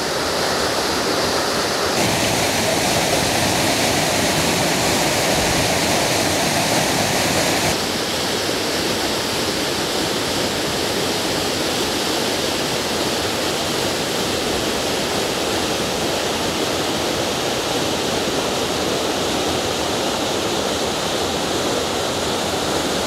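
Waterfall pouring, running full after heavy rain, a steady loud rush of water. Its tone shifts abruptly twice, at about two and eight seconds in.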